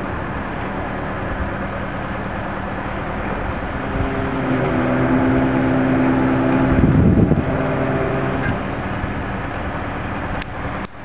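Mobile crane's diesel engine running during a lift. For a few seconds in the middle it holds a louder, steady drone, with a loud low rumble about seven seconds in, over a constant rumbling background.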